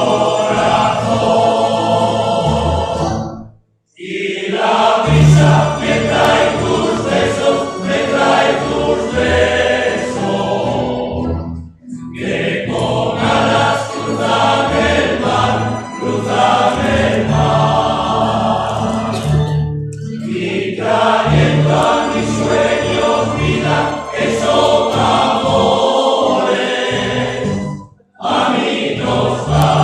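Song music with a group of voices singing over instrumental accompaniment; the sound drops out briefly about three times.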